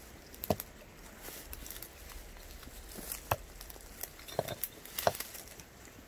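Gloved hands working in a small stone-lined spring hole: scattered rustling with a few sharp knocks of stones or debris, about half a second in, around three seconds in, and a cluster near the end.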